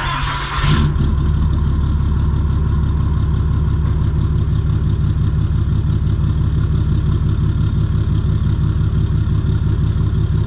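Cummins turbodiesel in a Ram 3500, exhausting through a dual-muffler system, catching after a short noisy burst a little under a second in, then idling steadily with a low rumble.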